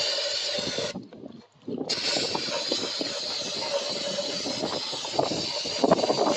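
Hissing spray used to clean out the stripped-down Predator 212 engine. It comes in two long bursts with a short break about a second in, with light knocks of parts being handled underneath.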